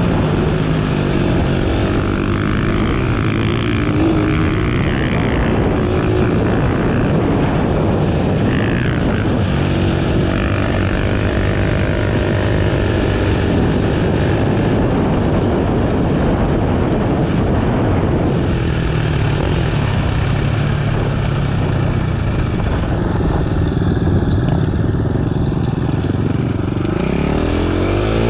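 Dirt bike engine running as the bike is ridden along a trail, its pitch rising and falling with the throttle, revving up near the end.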